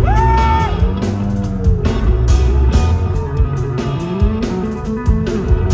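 Live hard-rock trio playing loud: a Yamaha electric bass plays notes that bend and slide in pitch, starting with a high bent note, over drums and cymbal strikes.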